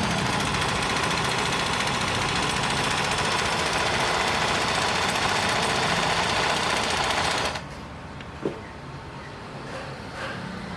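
Janome NS 385 sewing machine, driven by its external motor, running steadily while stitching a zigzag seam, then stopping abruptly about three-quarters of the way through, followed by a single click.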